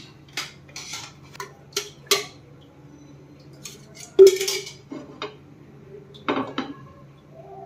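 Kitchen utensils and dishes clinking and knocking together in a string of separate strikes, the loudest about four seconds in, over a steady low hum.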